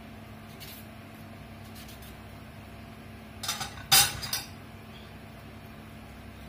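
Kitchen utensils clattering: a few sharp clinks and knocks between about three and a half and four and a half seconds in, the loudest near four seconds, over a steady low hum.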